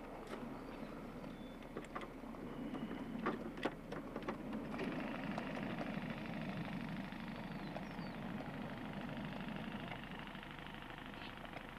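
Ride-on miniature train rolling slowly along its track with a steady rumble of wheels on rails. A few sharp clicks come about three to four seconds in.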